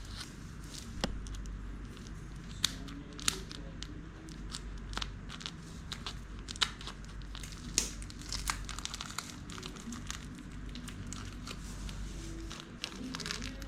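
A parcel's packaging being torn open and crinkled by hand: irregular crackling with sharp snaps throughout.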